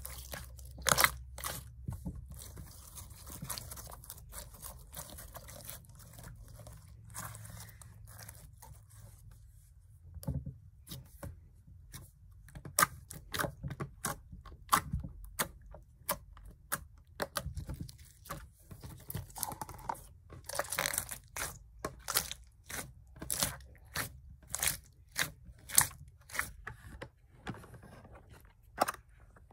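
Glittery slime being squeezed, stretched and pressed by hand, making irregular sticky pops and crackling clicks that come more often in the second half.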